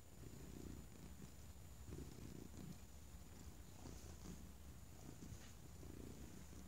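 Domestic cat purring faintly, the purr swelling and fading in a steady rhythm with its breathing.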